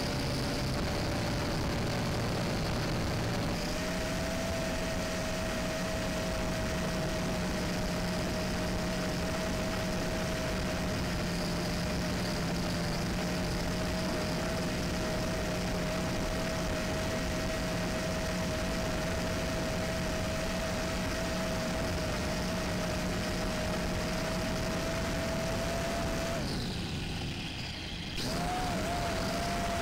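Steady whine of a LaTrax Alias quadcopter's motors and propellers, heard from its onboard camera, rising slightly in pitch a few seconds in. Near the end the motors throttle down and the sound drops away for about a second and a half, then returns with a quick rise in pitch.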